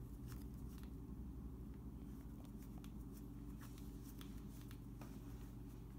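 Faint scattered small clicks and rustles of hands handling fine wire at a cordless drill's chuck, over a steady low hum; the drill is not running.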